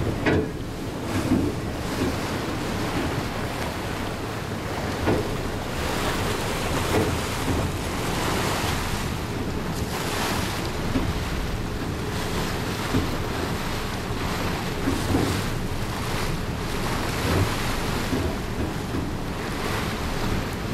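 Wind buffeting the microphone and water rushing past the hull of a passenger ferry under way, with the ferry's engine running steadily underneath and a few short bumps.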